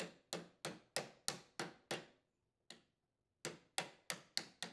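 Light metal-on-metal hammer taps, about three a second, driving the worm gear bearing along the tiller's tine drive shaft to seat it in the transmission housing. The taps pause briefly a little past halfway, then resume and come slightly quicker near the end.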